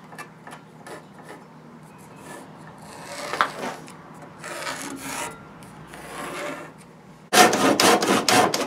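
A few faint scratching strokes of a marking tool going over scribed lines on a walnut gunstock blank, then, about seven seconds in, a handsaw starts cutting into the walnut with loud, quick back-and-forth strokes.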